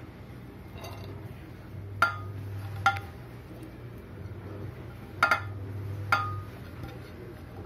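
Glass dishes clinking: several sharp clinks with a short ring, as chopped onion, green chilli and tomato are scraped by hand from a glass plate into a glass bowl. A low hum comes and goes underneath.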